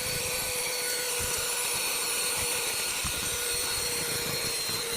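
Cheap handheld cordless car vacuum running steadily with a whine over its suction hiss, cleaning dirt, sand and small stones off a car floor mat, with irregular low knocks.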